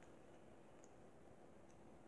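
Near silence: room tone, with two faint tiny clicks.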